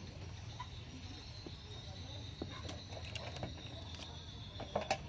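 Light clicks and knocks of a multimeter and its test leads being handled on a workbench, the loudest cluster near the end, over a steady low hum.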